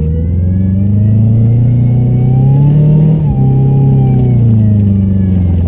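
2003 Subaru Forester's 2.5-litre flat-four engine revving hard under heavy load in deep mud, heard from inside the cabin. The engine note climbs for about three seconds, dips briefly, then holds high and sinks slowly, while the car barely moves.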